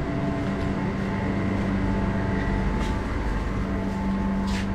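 Steady machine hum with several constant pitched tones over a low rumble, and a few faint clicks near the end.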